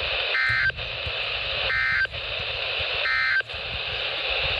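Three short warbling bursts of NOAA Weather Radio SAME digital data, the Emergency Alert System end-of-message code that closes the weekly test. Each burst lasts about a third of a second, with about a second between them, over steady radio static.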